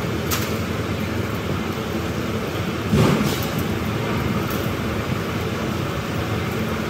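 Steady factory machinery noise with a low hum, a few sharp metallic ticks, and a brief louder thump about three seconds in.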